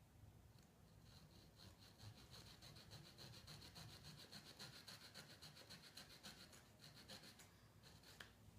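Small hand saw cutting a notch into a debarked wooden stick: faint, quick back-and-forth strokes, several a second, that pick up about two seconds in and stop near the end.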